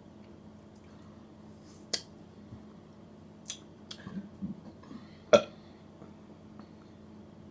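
A few small, short burps let out by someone holding a burp in, with sharp clicks between them; the loudest comes about five and a half seconds in.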